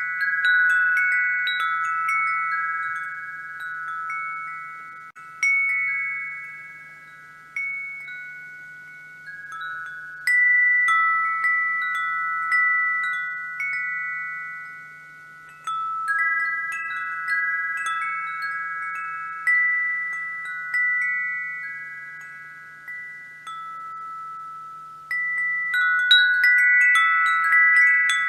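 Wind chimes ringing: clusters of several high notes struck together every few seconds, each cluster left to ring out slowly before the next.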